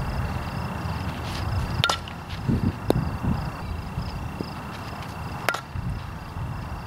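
Softball bat hitting tossed softballs twice, two sharp cracks about three and a half seconds apart, over a steady low rumble.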